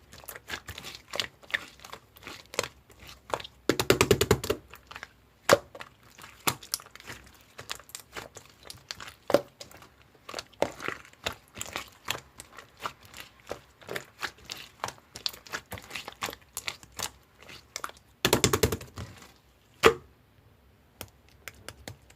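Slime being squeezed and stretched by hand, giving a steady run of wet clicks and small pops, with two spells of rapid crackling pops, about four seconds in and again near the end.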